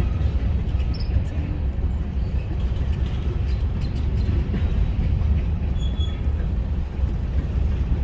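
Freight train of covered grain hopper cars rolling past: a steady low rumble of steel wheels on rail with light clatter. A brief high squeak comes about six seconds in.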